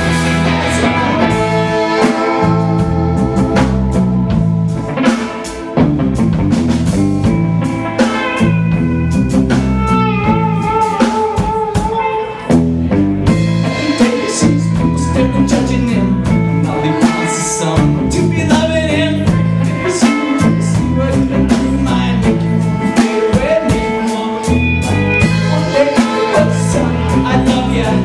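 Live band playing with amplified electric guitars, electric bass and a drum kit, locked into a repeating bass-and-drum groove with guitar lines on top.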